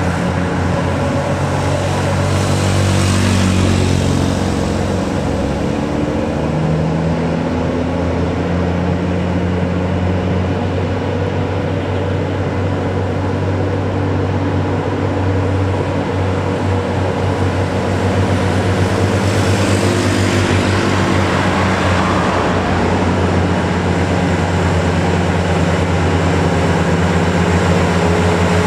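Heavy diesel truck engine labouring steadily up a steep climb under load, a low drone throughout. Vehicles rush past about three seconds in and again around twenty seconds in, and an engine note rises near the end.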